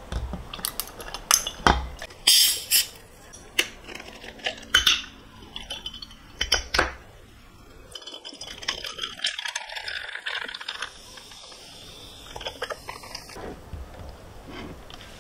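Dishes and metal utensils clinking and knocking in a home kitchen. There are a dozen or so sharp clinks in the first half, then quieter handling and scraping sounds.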